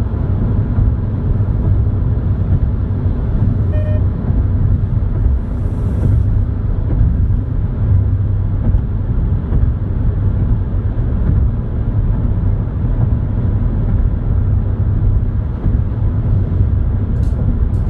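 Steady low drone of tyres and engine heard inside a car's cabin while cruising on a highway.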